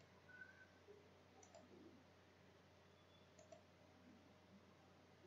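Near silence, with a couple of faint computer mouse clicks as dates are picked in an on-screen calendar.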